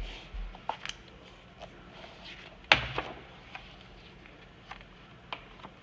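Hardcover picture book being opened and its pages turned by hand: light taps and page sounds, with one sharp knock just under three seconds in and a few small ticks after.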